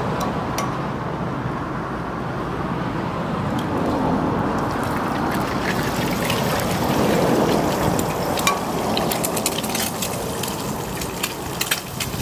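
Eggs frying in hot oil in a pan over a charcoal fire: a steady sizzle with scattered pops and crackles, which come more often in the second half as more eggs go into the pan.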